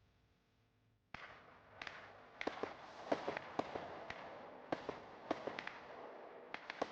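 Consumer firework going off: about a second in it starts suddenly, then a steady hiss with irregular sharp cracks, several a second.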